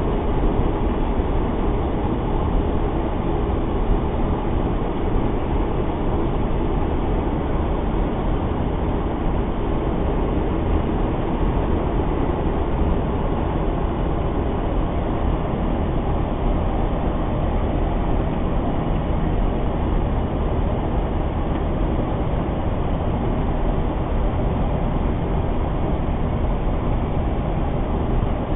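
Steady rumble and rush of noise on the flight deck of an Airbus A330 in flight on final approach, heard from inside the cockpit.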